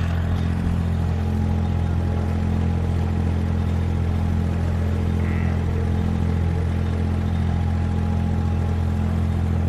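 An engine running steadily, a loud low drone that holds the same pitch throughout.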